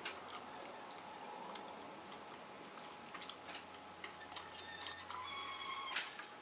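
A paintbrush held against a PVC sheet spinning on a turntable: faint, irregular ticks and clicks, with a few short squeaks and a sharper click near the end.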